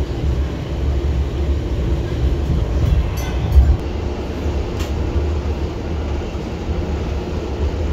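Steady low rumble of a moving steam-hauled passenger carriage heard from inside, wheels running on the rails, with a sharp knock about three and a half seconds in and another click a second or so later.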